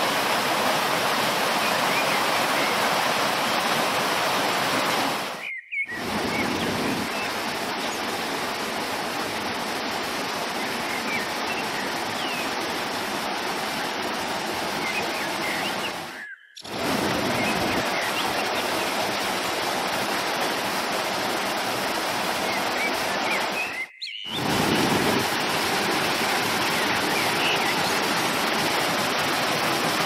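Small waterfall splashing over rocks into a pool, a steady rushing of water, with a few faint bird chirps above it. It breaks off briefly three times.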